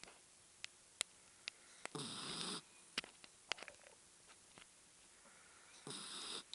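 A sleeping dog snoring: two rasping snores about four seconds apart, each under a second long. A few sharp clicks fall between them.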